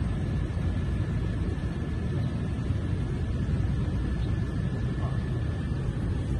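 Steady low rumble of outdoor background noise, with a faint steady high whine.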